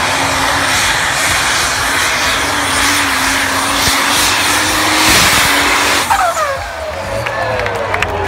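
Competition pulling tractor at full power down the track: a loud, steady engine noise whose pitch rises slowly. About six seconds in it drops off abruptly, leaving a falling whine.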